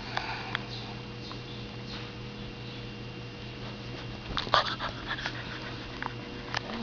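Labrador puppy sniffing and moving about, with scattered short knocks and rustles, busiest about four to five seconds in, over a steady low hum.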